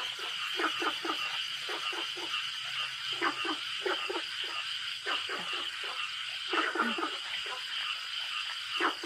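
Frogs croaking at night: short calls coming in quick runs of several at a time, over a steady high-pitched insect hum.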